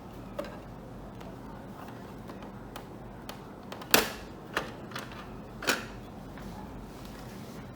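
A few sharp clicks and knocks from handling hard objects, the loudest about four seconds in and two more soon after, over a steady low hum.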